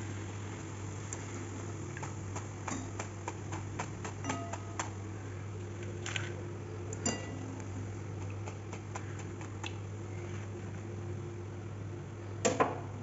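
Scattered light clinks and taps of a wire skimmer and spoon against a steel kadhai and plate as fried pakoras are lifted out and plated, over a steady low hum. A louder pair of clinks comes near the end.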